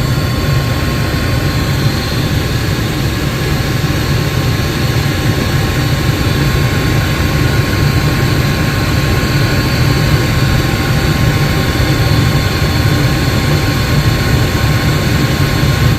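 Furnace running steadily with its burner flames lit, a continuous even roar with no cut-out: the burners now stay on after the flame sensor and control board were replaced.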